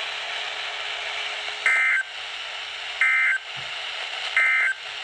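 Emergency Alert System end-of-message data bursts: three short, identical, buzzy digital tone bursts, each about a third of a second and about a second apart, marking the end of the severe thunderstorm warning. They come over a steady hiss of radio reception.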